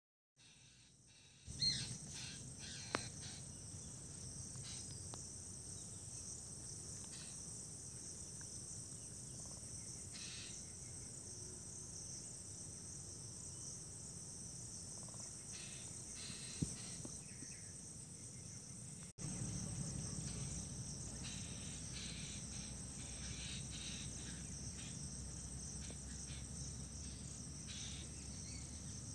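Steady high-pitched insect chorus, like crickets, over a low hum, with a few sharp clicks.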